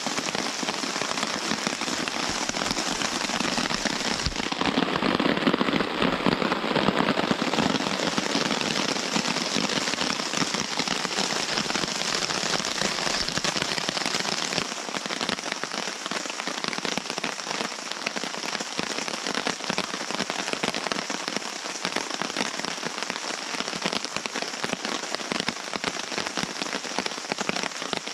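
Heavy rain pattering steadily on the Orson nylon tarp overhead and the forest around it, a dense hiss of countless drops, swelling a little for a few seconds early in.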